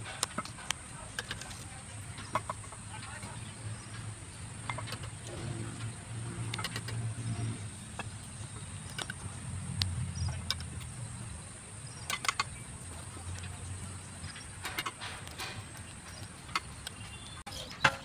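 Bricklayer's steel trowel knocking and tapping on fired clay bricks as they are bedded in mortar: irregular sharp clicks and knocks, sometimes several in quick succession.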